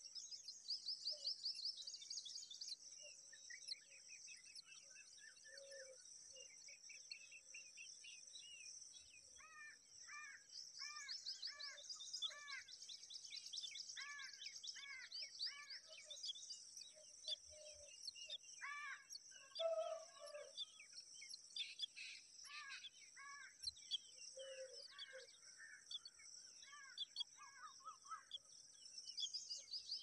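Faint birdsong: a run of repeated short chirps, clustered in the middle, over a high, fast trilling that is strongest near the start and the end.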